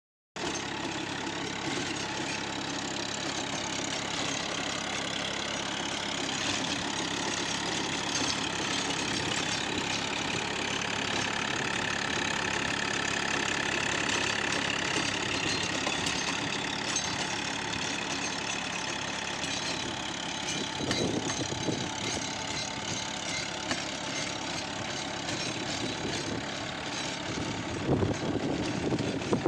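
John Deere 36 hp compact tractor's diesel engine running steadily under load, driving a rotavator through the soil. A higher whine comes in for a few seconds partway through, and a couple of short thumps sound in the last third.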